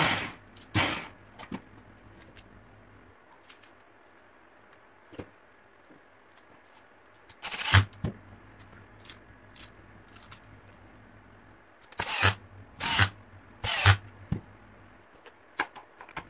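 Scattered clicks and knocks of hard parts being handled, coming in short clusters with quiet gaps between, over a faint low hum.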